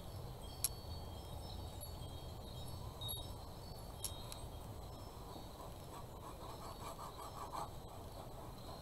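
Faint handling sounds of a squeezed plastic bottle of clear gel tacky glue being worked along the edge of a board, with a few light clicks, some short high ringing tones, and a brief run of quick soft pulses about two-thirds of the way through, over a low steady hum.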